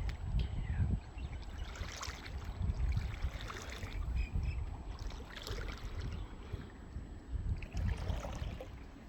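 Wind buffeting the microphone: an uneven, gusty rumble, with faint scattered higher rustling over it.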